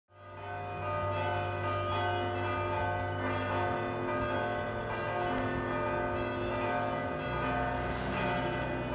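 Bells chiming one after another in a measured sequence over a steady low tone, which shifts pitch twice. The sound fades in at the very start.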